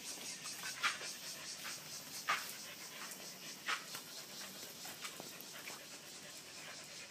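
Dogs panting, with three short sharp sounds about a second and a half apart in the first half.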